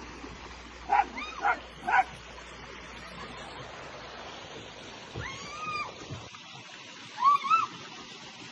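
A dog giving three short, high yips about half a second apart, then a longer whine a little past five seconds in, and two more quick yips near the end.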